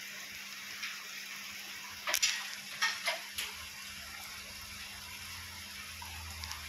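Sheep feeding from a bowl of dry fodder: a few short crunching, rustling sounds about two to three seconds in, over a steady hiss and low hum.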